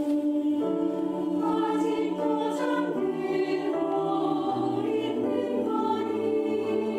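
Mixed choir singing a choral song in sustained, slowly moving chords, with a low part growing stronger about halfway through.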